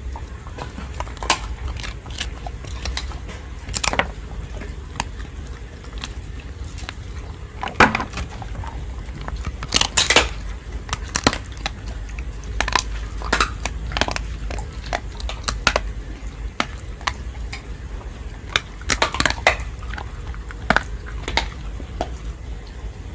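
A dog chewing and crunching its food, with irregular crunches and clicks, some louder and in quick clusters, over a steady low rumble.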